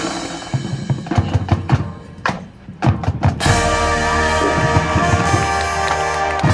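High school marching band: a drumline passage of sharp drum strokes, thinning briefly partway through, then the full band re-enters with sustained brass chords over the drums about three and a half seconds in.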